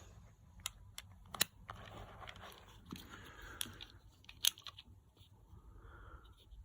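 Handling noise from a small blank-firing revolver: a few sharp clicks, the loudest about one and a half and four and a half seconds in, amid soft rustling.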